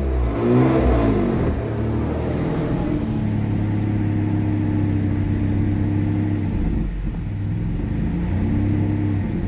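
Supercharged car engine running: it is blipped up and back down about a second in, holds a steady idle, and is blipped again briefly near the end. It is running on an air-fuel tune that still needs work at tick-over.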